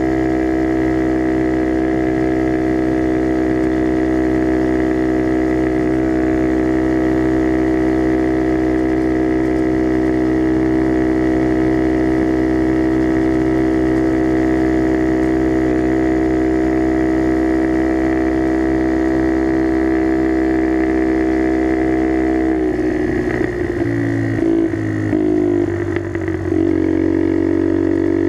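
Skyteam Dax minibike engine running through a custom NHRC carbon exhaust, held at steady revs. Near the end the note breaks up and dips in pitch and loudness for a few seconds, then settles steady again.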